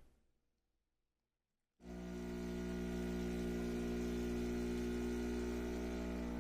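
Steady electric buzzing hum with many evenly spaced overtones, typical of an espresso machine's vibratory pump running. It is cut to silence for the first couple of seconds, then resumes and holds steady.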